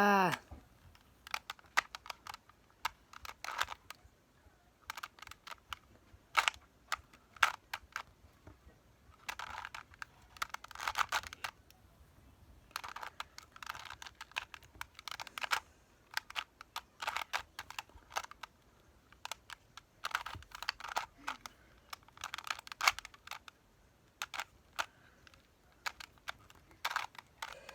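A Rubik's cube being twisted by hand: irregular runs of sharp plastic clicks as the layers are turned, in bursts with short pauses between.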